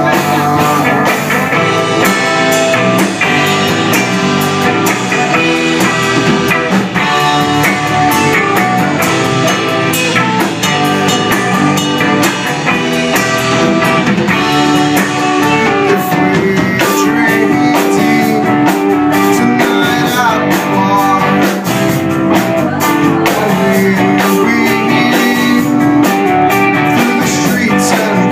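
A live rock band plays a song on electric guitars, bass guitar and drum kit, loud and without a break.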